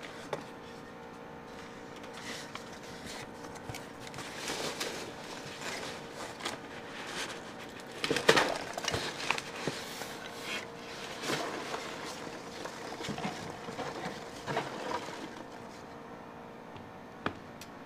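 Irregular handling noise: rustles, scrapes and light knocks, loudest about eight seconds in and tapering off near the end, over a faint steady hum.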